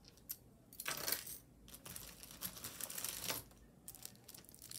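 Gold-tone chain necklace with pale green stones and crystals clinking and jingling as it is handled and set down. The sound is a run of light metallic clicks, gathering around one second in and again from about two to three and a half seconds.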